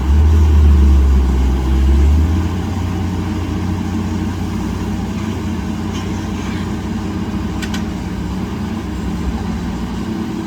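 Heavy earthmoving machine's diesel engine running: a strong deep rumble for the first two seconds or so, then easing to a steady run.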